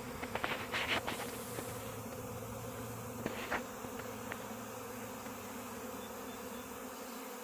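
Honey bee swarm in flight: the steady drone of thousands of bees flying around, with a few brief, louder buzzes in the first second and again about three and a half seconds in.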